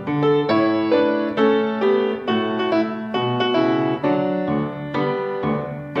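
Instrumental intro music: a piano playing a light melody of struck notes, about two notes a second.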